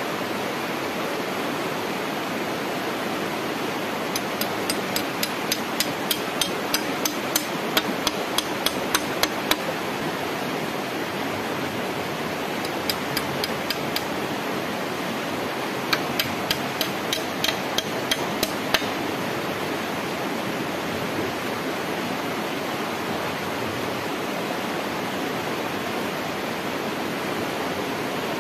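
Hammering on the wooden pole frame: quick, sharp strikes about three a second, in a long run of some six seconds and then two shorter runs. Under it is the steady rush of flowing water.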